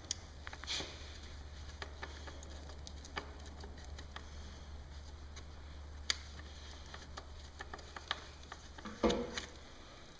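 Faint, scattered clicks and light taps of small screws and lock nuts being handled and fitted into the drilled holes of a motorcycle fairing bracket, over a low steady hum.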